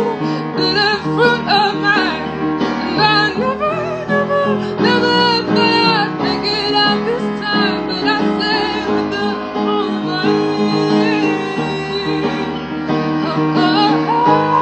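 A woman singing while accompanying herself on piano.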